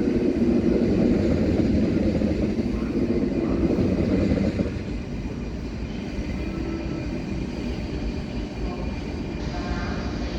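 Train running past on the rails: a loud, dense rumble that drops sharply a little before halfway through, then goes on as a quieter, steady rumble.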